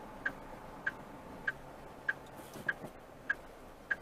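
Truck cab's indicator flasher clicking steadily, one short high tick about every 0.6 seconds, over the low steady hum of the running truck.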